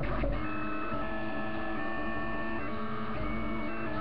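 Delta 3D printer's stepper motors whining as the print head moves, in steady tones that jump to a new pitch every fraction of a second with each change of move. A brief scratchy noise comes right at the start.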